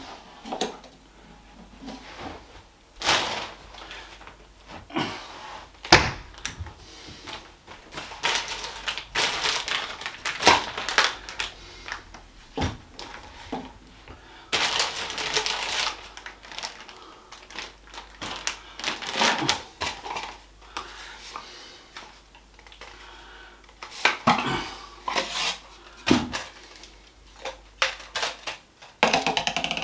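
Parts of an HVLP paint sprayer being handled and set down on the floor: irregular knocks and clatter of plastic and metal pieces, with stretches of rustling packaging.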